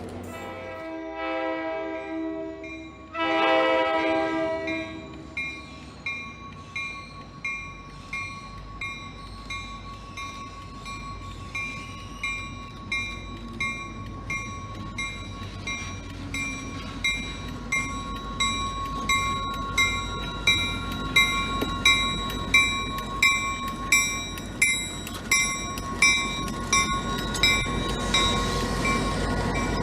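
A train horn sounds two blasts, the second longer and louder. A bell then rings steadily about once a second over a low train rumble, growing louder toward the middle and easing near the end.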